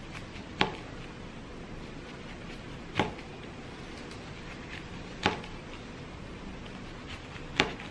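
Kitchen knife slicing through a gimbap roll and knocking on a plastic cutting board at the end of each cut. There are four sharp knocks, a little over two seconds apart.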